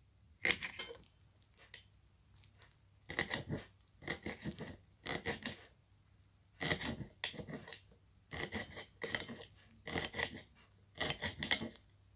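Knife slicing green hot chili on a ceramic plate: short bursts of clicks and scrapes as the blade cuts through and strikes the plate, with brief pauses between strokes.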